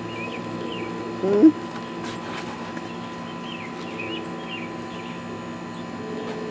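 Small birds chirping in the background, short high chirps scattered throughout, with one brief voiced sound rising in pitch about a second and a half in.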